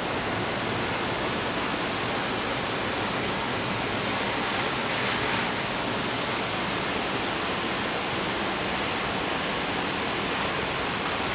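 A steady rushing hiss with no pitch, even throughout and swelling slightly about five seconds in.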